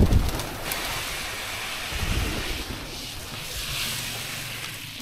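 Pressed fish-feed pellets scattered from a sack onto pond water, a hissing patter that swells about three and a half seconds in, with wind rumbling on the microphone.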